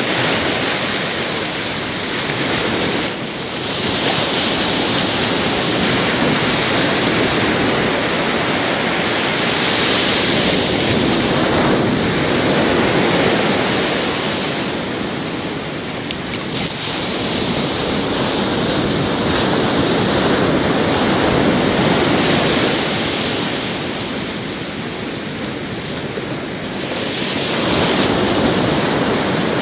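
Ocean surf breaking on a beach: a continuous rushing wash of waves that swells and eases every several seconds.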